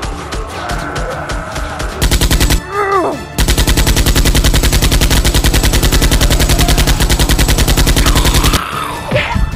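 Rapid automatic machine-gun fire added as a sound effect: a short burst about two seconds in, then a long loud burst from about three and a half seconds in until near the end, over background music.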